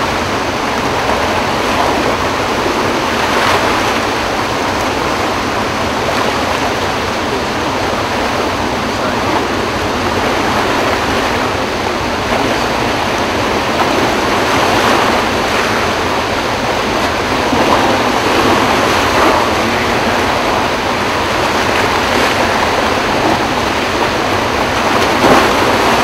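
Floodwater rushing through the open gates of Kaw Dam during a high flood release: a loud, steady churn of turbulent water with slight swells in level.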